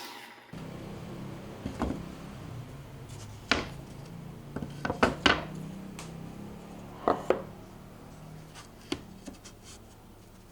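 Scattered sharp knocks and clicks of wooden pieces and tools being handled on a workbench, a cluster of them about five seconds in, over a low steady hum.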